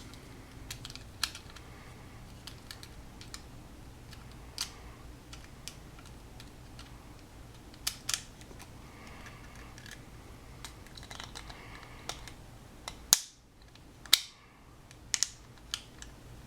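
Hard plastic key fob casing being pressed and snapped back together by hand: scattered small clicks and snaps, with two louder snaps about three-quarters of the way through.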